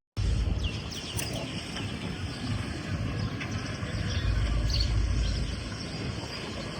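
Outdoor rural ambience: small birds chirping a few times near the start, over a steady low rumble.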